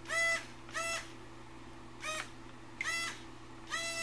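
The scratch-built RC boat's tiny nano motors and propellers, run from Syma X5 quadcopter electronics, whining in short throttle blips. Each blip rises in pitch as the motors spin up, then holds steady and cuts off. There are four short blips, then a longer one of about a second near the end.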